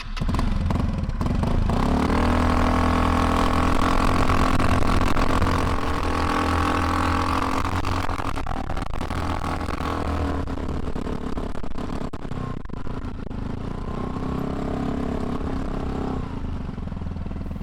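A vehicle engine running steadily under way, its pitch shifting a little about two seconds in and again later.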